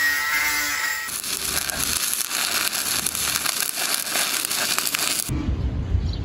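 Electric welding arc crackling steadily as a bead is laid on pipe. It starts about a second in and cuts off abruptly near the end, giving way to a low rumbling noise.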